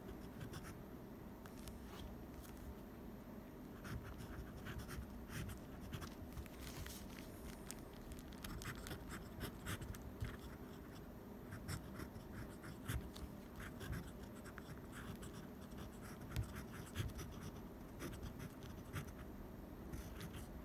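Fountain pen nib scratching on paper as Chinese characters are written: short, irregular strokes in quick clusters with brief pauses between characters.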